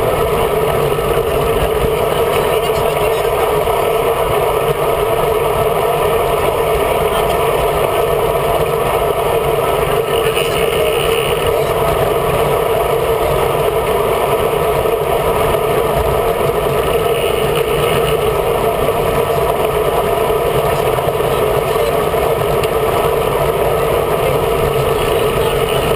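Steady wind rush on the microphone of a camera mounted on a moving road bike, mixed with tyre noise from the road; the level stays even throughout.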